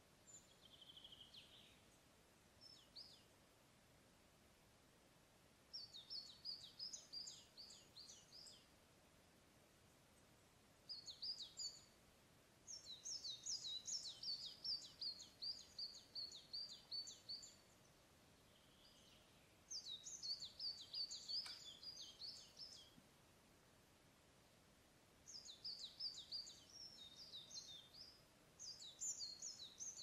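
Forest songbirds singing: about six quick phrases of rapid, high, descending notes, each a few seconds long, separated by pauses, with a couple of softer single calls between them.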